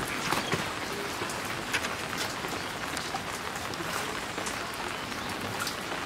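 Steady rain falling, an even hiss with scattered sharp ticks of individual drops.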